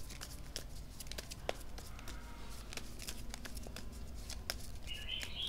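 Tarot deck being shuffled by hand: quiet, irregular clicks and slides of cards against each other, with one sharper snap about a second and a half in.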